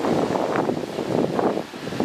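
Bulldozer at work pushing dirt, heard through wind buffeting the microphone: a dense, rough crackling rumble that eases slightly near the end.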